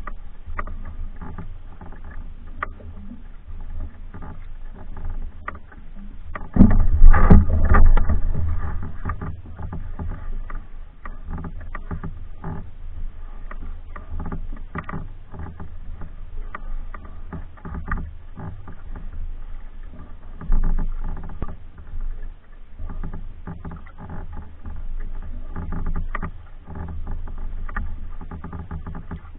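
Double-bladed paddle strokes dipping and splashing beside a small pack canoe, with water dripping off the blades and a low steady rumble underneath. About seven seconds in there is a louder burst of noise lasting about two seconds.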